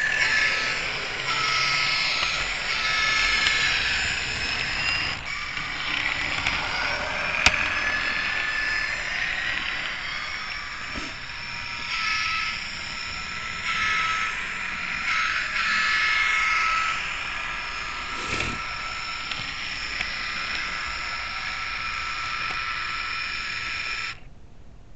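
HO scale model train running along its track, a steady rattle of the wheels on the rails with high-pitched squeals that come and go. The noise drops away sharply near the end.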